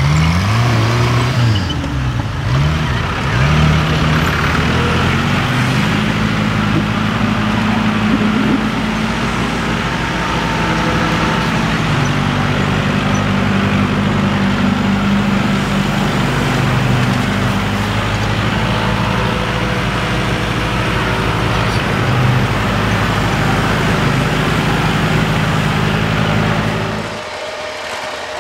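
Tractor engine running, its pitch rising and falling over the first few seconds, then holding steady; the sound cuts off suddenly near the end.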